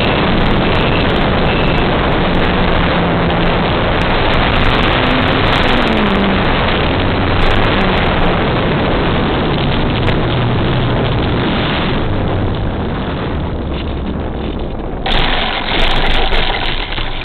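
Harsh onboard audio from a small RC airplane's FPV camera: the motor and propeller running with heavy wind rush over the microphone. The noise eases for a few seconds as it comes in low, then jumps to a sudden louder burst near the end as the plane nears the runway.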